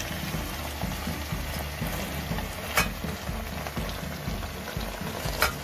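Leeks and tofu sizzling in a steel wok while a metal spatula stirs them, with two sharp clinks of the spatula against the wok, about three seconds in and near the end.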